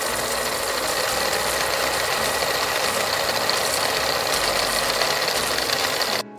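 Steady, fast mechanical rattling sound effect, like a ratchet or clockwork running, timing the pause while a quiz question waits for its answer; it cuts off suddenly near the end.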